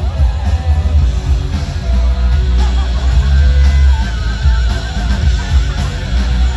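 Loud amplified rock music with electric guitar and heavy bass.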